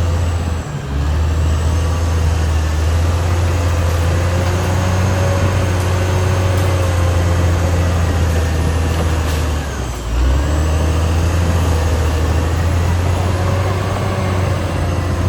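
Caterpillar D6R XL bulldozer's diesel engine running steadily under working load. It dips briefly just under a second in and again around ten seconds in, then picks back up.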